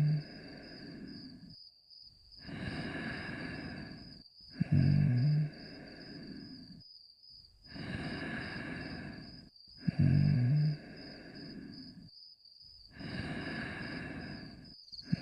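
Cartoon dog snoring in a slow, even loop. Each breath is a short, loud, low snore followed by a longer, softer, breathy exhale, and the cycle repeats about every five seconds. A faint steady high whine sits underneath.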